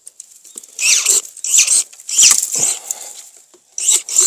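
Scratchy rustling and scraping bursts from pruning work on a maesil (Japanese apricot) tree's branches, coming a couple of times a second with a short lull in the middle.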